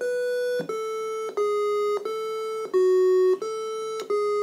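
Single-voice square-wave chiptune melody from the Zeal 8-bit computer's FPGA sound output, played through a small external speaker. Evenly paced notes, about two-thirds of a second each, step up and down within a narrow range.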